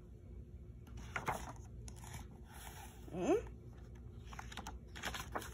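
Pages of a picture book being turned by hand, with soft paper rustles. About three seconds in comes one short rising "hm?" from the child reader.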